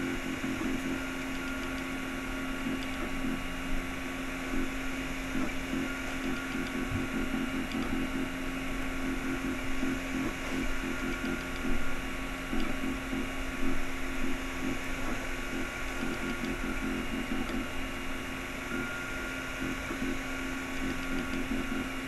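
Anet A8 3D printer printing: its stepper motors run in short, rapidly changing moves as the hotend traces the outline, with a high tone that comes and goes, over the steady hum of its fans.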